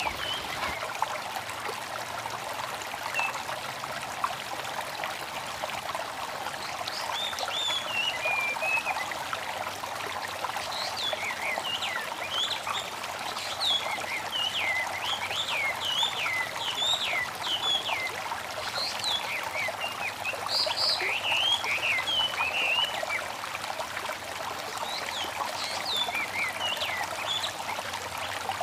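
Babbling stream trickling steadily, with birds chirping over it: many quick high chirps from about six seconds in until near the end.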